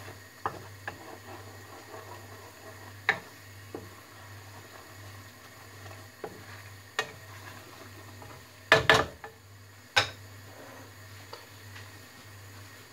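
Wooden spatula stirring sauce in a metal wok, with scattered knocks and clinks of the spatula against the pan. The loudest is a quick cluster of knocks about nine seconds in, over a faint steady low hum.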